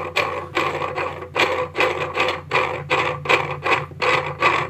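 3D-printed plastic screw parts of a bottle-cutting jig being twisted by hand, the plastic threads rasping in quick repeated strokes, about three or four a second.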